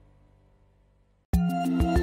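Faint background music fades almost to silence, then about a second in a louder piece of music starts suddenly with drum hits.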